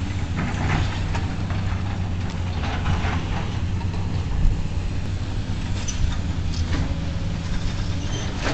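Diesel engines of tracked excavators running with a steady low drone, with irregular clattering and crunching of concrete rubble being broken and dropped during demolition.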